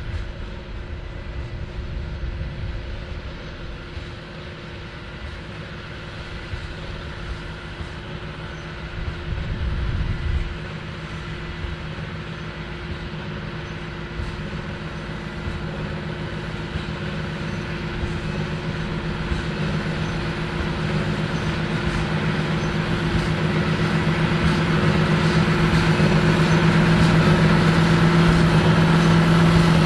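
John Deere 8530 tractor's engine working steadily while pulling a big square baler, with a steady hum that grows louder over the second half.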